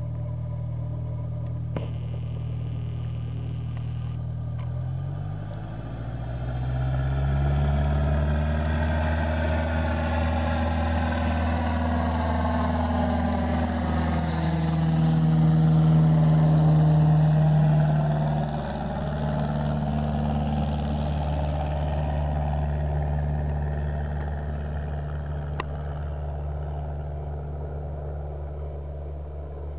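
Cessna 172 single-engine propeller plane taking off. The engine goes up to full takeoff power about five seconds in, and the sound grows as the plane rolls down the runway. It is loudest as the plane passes close by, dropping in pitch as it goes past, then fades as it climbs away.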